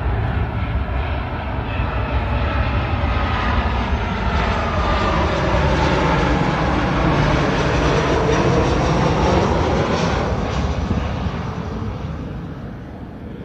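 Twin-engine jet airliner passing low overhead on its landing approach with gear down. The engines' roar and whine slide down in pitch as it goes by, loudest about two-thirds of the way in, then fading.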